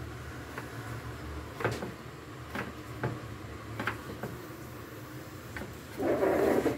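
Kitchen knife slicing chayote on a wooden chopping board: a few sharp, irregular knocks of the blade on the board, about a second apart, over a low steady hum. Near the end comes a louder, denser sound lasting about half a second.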